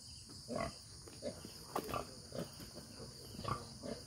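Pigs grunting: a sow and her piglets give short, repeated grunts, about two a second. A steady high insect hum runs behind them.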